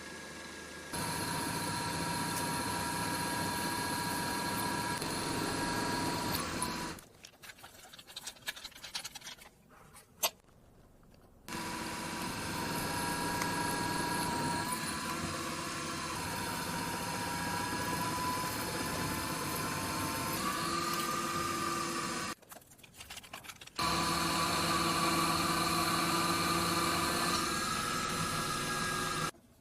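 Milling machine running steadily while cutting steel stock, with a steady whine at several fixed pitches that shifts slightly in pitch around the twentieth second. It runs in three stretches, broken by two short quiet gaps with a few sharp clicks.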